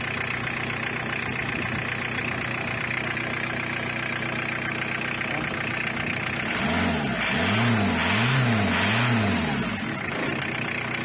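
Car engine idling steadily, then revved three times in quick succession about six and a half seconds in, its pitch rising and falling with each blip before it settles back to idle.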